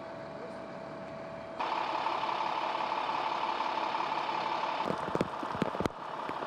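Fire engines running at idle: a steady engine drone that turns louder and harsher about a second and a half in, with several sharp taps and crackles near the end.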